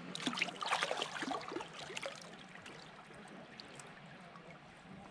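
Small splashes and trickling water as a cleaned trout is rinsed by hand in lake shallows, busiest in the first two seconds, then quieter.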